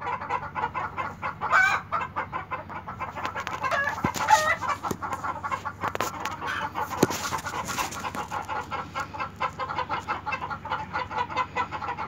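Chickens clucking in a rapid, unbroken chatter, with a few louder squawks standing out.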